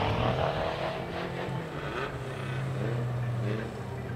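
Suzuki Jimny rally car's engine revving as it drives off-road, its pitch rising and falling several times as the driver works the throttle and gears. A steady low hum runs underneath.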